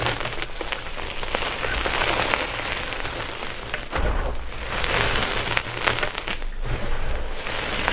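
Gym chalk being crushed and crumbled, a dense crackling patter of breaking chalk and falling powder with many small crisp clicks and a few soft low thumps.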